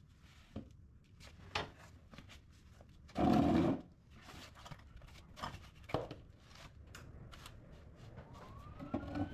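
Welder laying a single tack weld on the steel firewall: one short burst, about half a second long, roughly three seconds in, with scattered light clicks and knocks around it.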